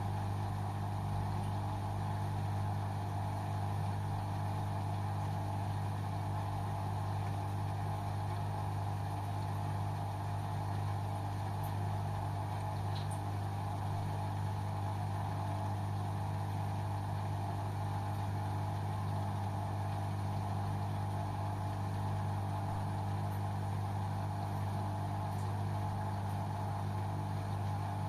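LG washing machine running its Synthetic 30 programme: a steady low motor hum that holds the same pitch, with no knocks or changes.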